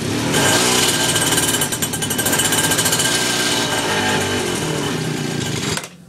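Pocket bike's small engine revved hard and held high for nearly six seconds as a fast, buzzing rattle, then dropping back suddenly to a low idle near the end.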